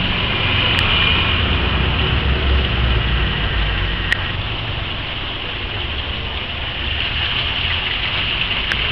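Water pouring from a drainage pipe and splashing into a river channel, a steady hiss, with a low rumble underneath.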